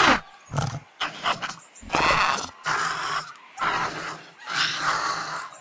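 Dubbed creature sound effects for a small early dinosaur: a string of short, breathy grunts or snorts, about one a second.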